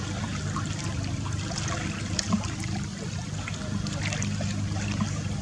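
Small splashes of water trickling and lapping, over a steady low hum.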